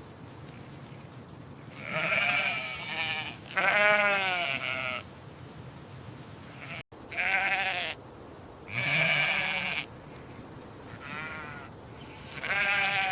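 Sheep bleating repeatedly: about six separate calls with a wavering pitch, each under a second and a half long, with short pauses between them.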